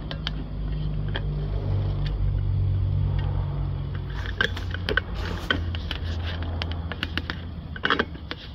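A low mechanical hum that weakens about four seconds in, followed by a run of sharp clicks and knocks, like metal parts or tools being handled.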